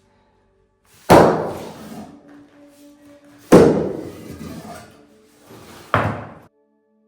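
Three heavy impacts, about two and a half seconds apart, each dying away quickly, over soft background music.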